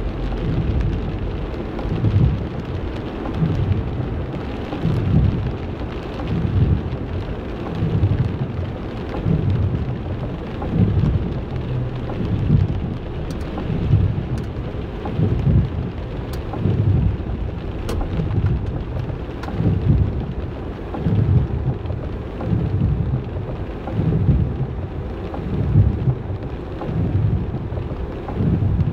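Heavy rain falling in a steady hiss, with low rumbling surges about once a second.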